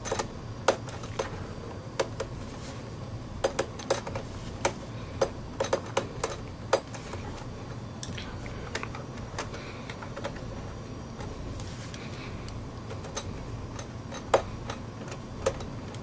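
Irregular small metallic clicks and taps as the aluminium memory-access plate of a Mid 2007 iMac is nudged into place with a screwdriver, the clicks coming thickly at first and more sparsely later.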